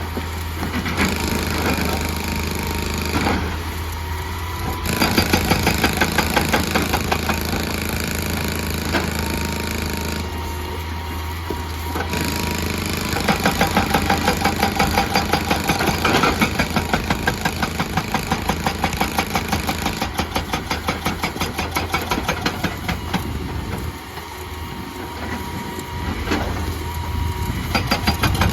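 Excavator's hydraulic rock breaker hammering rock in long runs of rapid, evenly spaced blows, stopping and starting again several times, over the steady hum of the machine's diesel engine.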